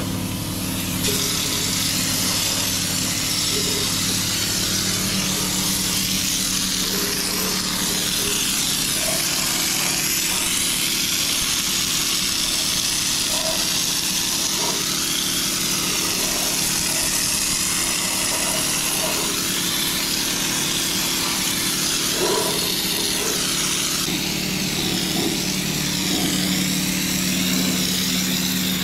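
Compressed-air spray gun hissing steadily as it sprays anti-corrosion coating onto the vehicle's underside, starting about a second in, over a steady low motor hum.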